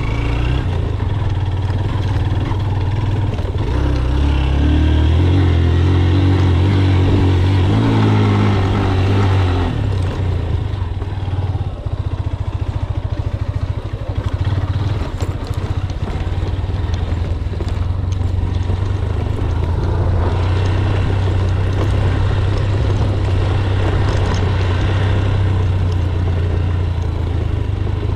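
Motorcycle engine running under load on a dirt trail. The revs climb for several seconds, fall back, then hold steady.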